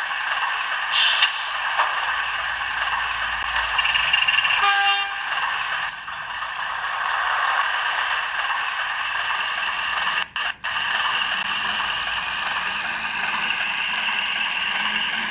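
OO gauge model Class 03 diesel shunter running on the track with a steady running hum, and a short horn toot about four and a half seconds in.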